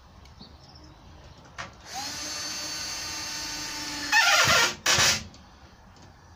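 Cordless drill-driver driving a screw into plywood: the motor spins up about two seconds in and runs steadily, then gets louder with its pitch dropping under load, and a short second burst finishes the screw.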